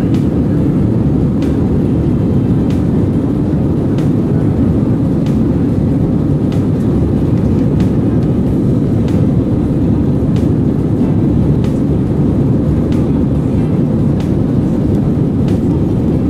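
Steady low rumble of an Airbus A320 heard from inside the cabin, with faint regular clicks about every second and a quarter.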